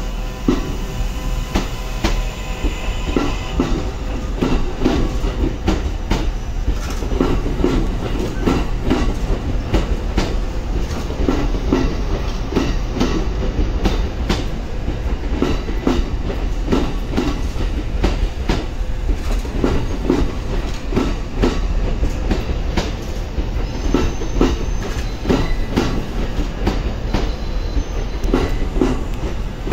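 Kintetsu 80000 series Hinotori limited express train rolling slowly past, its wheels clattering over the rail joints in repeated clusters of beats.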